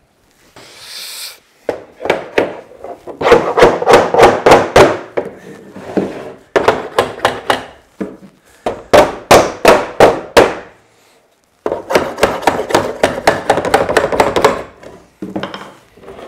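A hammer striking a wooden door frame to knock its joints apart. The blows come in four quick runs with short pauses between them.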